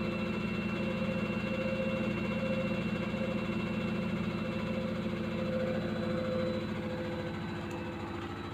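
Haier washing machine spinning its drum at high speed in the final spin, with a steady motor hum and whine and a fast, even vibration.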